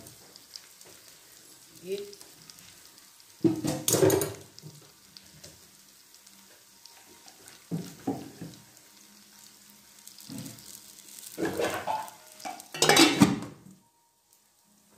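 A steel cooking pot being handled while a hot coal is set on the chicken for smoking: several short clatters and scrapes of metal with a brief sizzle. The loudest clatter, near the end, is the steel lid going onto the pot.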